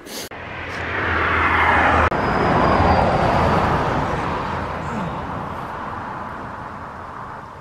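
Road traffic passing on the highway: tyre and engine noise swells over a couple of seconds, then fades away slowly.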